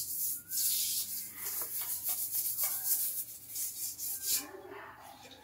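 A hand scrubbing a black kitchen countertop with salt powder: repeated gritty rubbing strokes that die down near the end.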